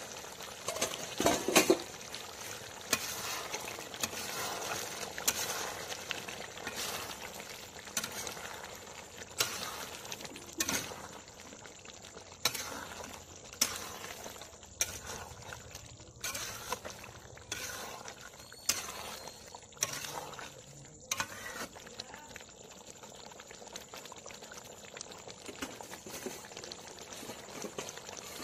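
Chicken curry bubbling in a kadai, with repeated sharp clicks and scrapes as a metal spatula stirs it against the pan.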